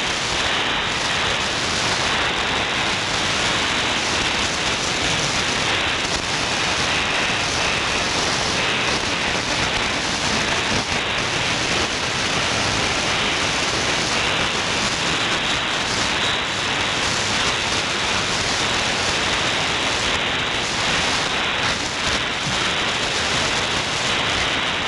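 Shortwave receiver tuned to 6090 kHz in the 49 m band, giving steady static hiss with no clear programme audio: a weak, unidentified signal buried in band noise.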